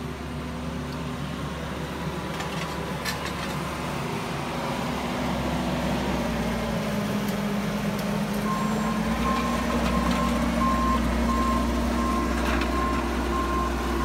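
Bobcat skid steer's diesel engine running as it drives a Harley rake soil conditioner over the dirt, growing louder as it comes closer. About eight seconds in, its backup alarm starts beeping steadily, a little under two beeps a second.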